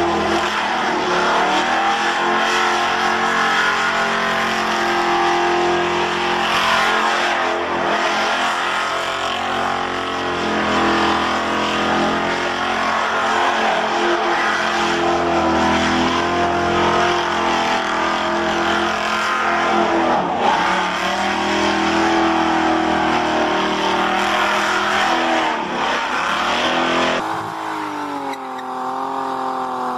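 Car engine held at high revs through a tyre-smoking burnout, with the rear tyres squealing as they spin. About 27 seconds in it cuts to another car, a BMW sedan, whose engine note drops and then climbs again as its rear tyres smoke.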